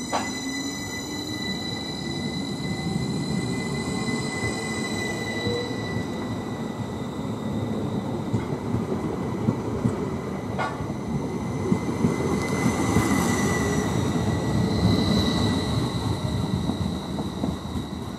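Electric multiple-unit train moving along the platform: a steady rumble of wheels on rail with a high-pitched squeal, a rising motor note near the start and a sharp click about ten seconds in.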